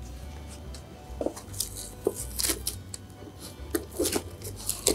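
A cardboard box being opened by hand: an irregular run of scratchy crackles, scrapes and light taps as the cardboard and its packing tape are picked at and pulled.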